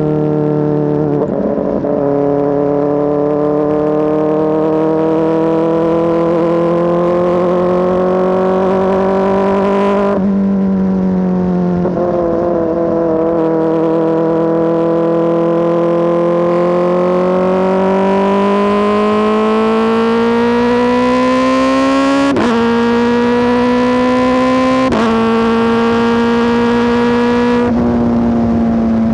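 Kawasaki ZX-4RR's 399 cc inline-four running through an SC Project S1 aftermarket exhaust, loud and steady under way. Its note climbs slowly and breaks briefly several times.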